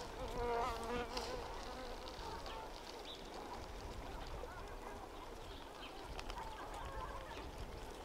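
Waterfowl calling: a wavering nasal call, under a second long, shortly after the start, and fainter short calls near the end, over a low steady rumble.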